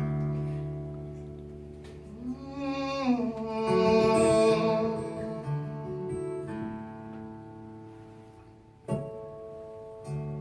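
Acoustic guitar playing a slow instrumental introduction: long ringing notes with a note sliding up and back down early on, and a sharp struck chord near the end.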